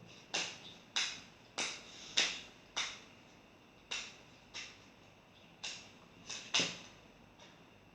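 A tarot deck being shuffled by hand: about a dozen short swishing slaps of the cards, at irregular intervals mostly under a second apart.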